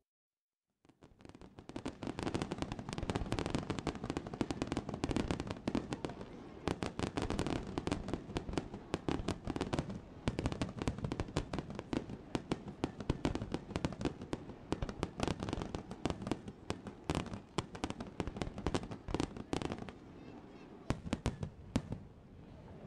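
Fireworks going off in a rapid, dense barrage of bangs and crackles, starting about a second in and thinning to a few single bangs near the end.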